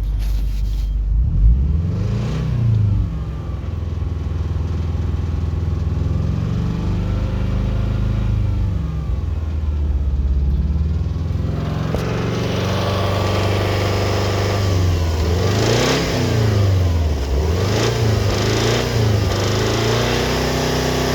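Subaru EJ205 flat-four engine idling and being blipped, with one rev near the start, a slow rise and fall in the middle, and several quick revs in the last third. It knocks from worn rod bearings.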